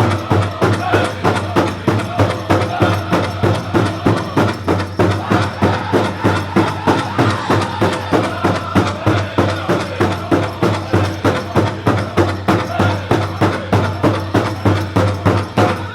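Powwow drum group singing a grass dance song in high voices over a big drum struck in unison at a steady beat of nearly three strokes a second. The song and drumming stop together suddenly at the very end.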